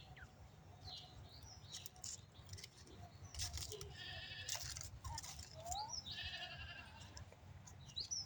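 A goat bleating twice with a quavering call, about four and six seconds in. Birds chirp briefly in the background.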